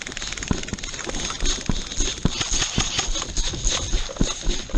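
Footsteps of a person walking quickly over dry ground, about three steps a second, each with a dull thump.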